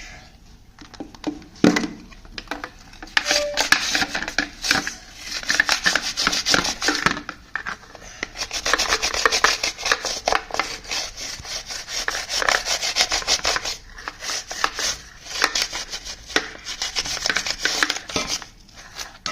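An old brush scrubbing a washing-machine filter to clear the dust from it, in rapid back-and-forth strokes with a few short pauses.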